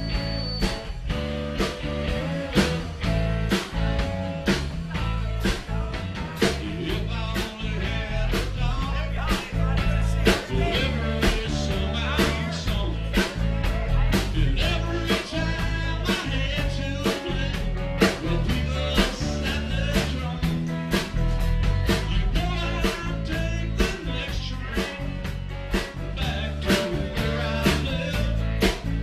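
A live band playing: electric bass, electric guitar and drum kit, with a steady drum beat.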